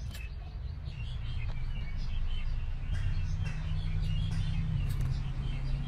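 Small birds chirping and twittering over a steady low hum, with a few light clicks.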